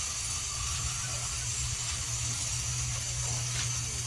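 Steady hiss over a low hum, with no distinct events.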